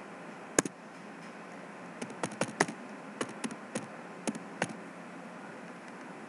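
Computer keyboard being typed on: a single sharp click about half a second in, then a quick run of about a dozen keystrokes.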